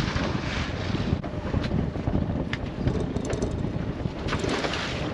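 Wind buffeting the microphone on a small open boat at sea, with a few light knocks and clatters as a lobster pot is handled and lifted over the side.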